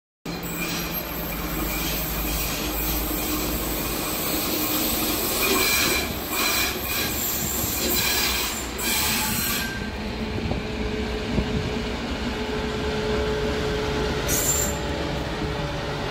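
Class 232 'Ludmilla' diesel locomotive rolling past with its engine rumbling low. Its wheels squeal against the rails through the first ten seconds or so and again briefly near the end.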